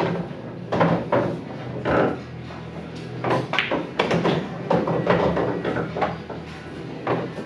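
Pool balls and cue clacking: a string of sharp, irregular knocks over a steady low hum of room noise.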